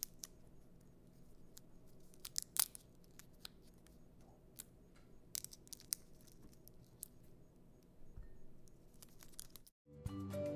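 Roasted chestnut shells and their papery inner skins being peeled by hand: faint, scattered crackles and small tearing sounds, one sharper crack about two and a half seconds in. Music starts just before the end.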